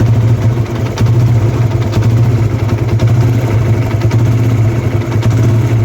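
TVS Apache RTR 160's single-cylinder engine idling steadily, without the 'tikki tikki' timing-chain tick now that its cam chain tensioner has been replaced.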